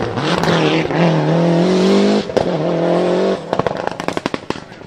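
A performance car engine revving, held high and rising slightly, then cut off and blipped again briefly. As the revs drop, the exhaust lets out a rapid string of sharp pops and crackles for about a second, dying away.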